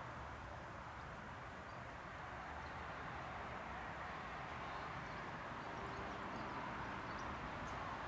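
Steady outdoor garden ambience: a constant even rush, with a few faint, short, high bird chirps in the second half.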